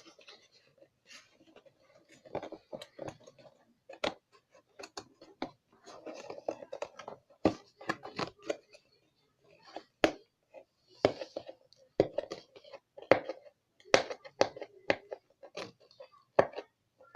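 Handling of the kit's plastic packaging and parts: many irregular clicks, taps and short rustles.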